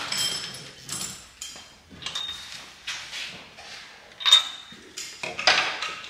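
Workshop clatter: metal tools and parts clinking and knocking now and then, two of the strikes ringing briefly. The motorcycle engine is not yet running.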